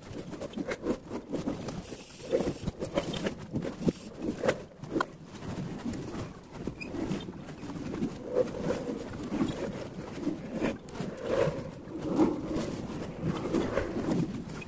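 Birds calling outdoors over scattered light taps and rustles.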